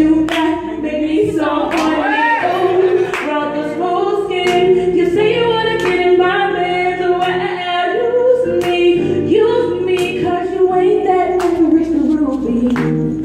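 Woman singing live into a microphone in long held, wavering notes, to a hollow-body electric guitar that she strums with sharp strokes about once a second.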